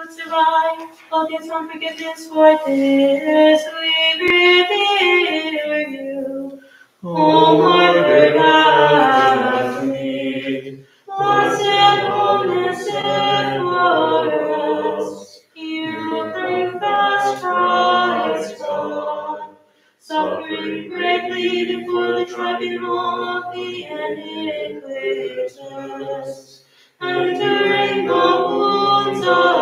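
A small group of mixed voices singing Byzantine-rite liturgical chant a cappella, in phrases of a few seconds separated by short pauses.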